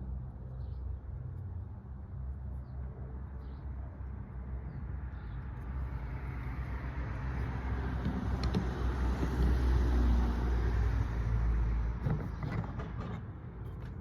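A vehicle passing: a low rumble and hiss swells over several seconds, peaks about ten seconds in and fades away, with a few sharp clicks near the end.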